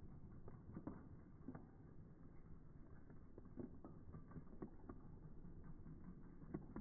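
HO-scale model freight train rolling slowly along the track: faint, irregular clicks and light rattling from the boxcars' small metal wheels and running gear.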